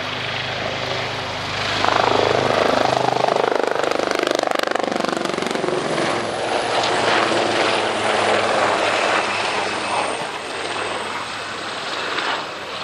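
AgustaWestland Wildcat helicopters flying past: rotor blade chop over the whine of their twin turboshaft engines, growing louder about two seconds in. A high turbine whine slowly drops in pitch over the second half.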